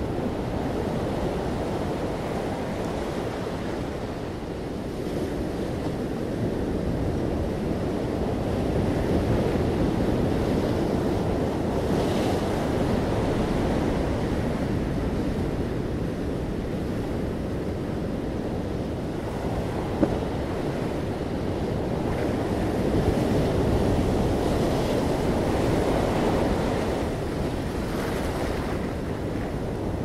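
Ocean surf breaking and washing up over a sandy beach among rocks: a continuous rush of water that swells and eases as sets of waves come in. One brief click about two-thirds of the way through.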